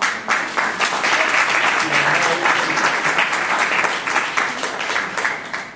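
Audience applauding: dense clapping that starts suddenly and dies away near the end.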